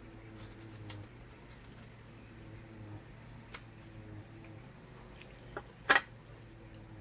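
Quiet handling of field-ration food packaging and pilot-bread crackers: scattered light crinkles and clicks, with one sharp crack about six seconds in.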